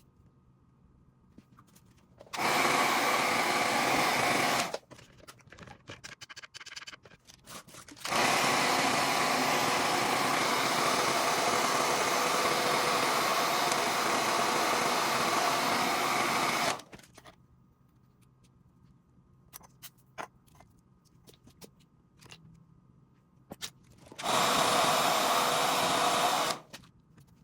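Handheld hair dryer blowing in three bursts: about two seconds, then a long run of roughly nine seconds, then about two more near the end, each switched on and off abruptly, with small handling clicks in between.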